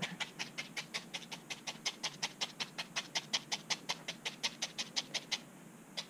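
Felting needle stabbing rapidly into a wool-wrapped foam ball, about six short scratchy pokes a second, stopping near the end. Each stab drives the wool fibres down so they knit into the foam core.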